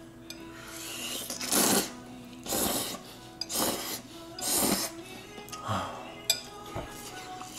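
A man slurping instant ramen noodles off chopsticks in about five loud slurps, each a short hissing rush, over faint background music.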